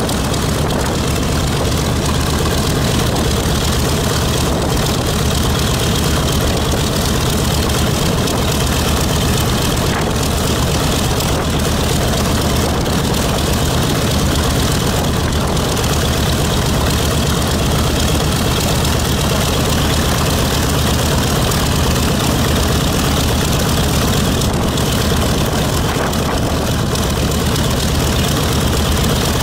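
B-25 Mitchell bomber's Wright R-2600 radial engines running steadily at warm-up idle, a deep, even propeller-driven drone.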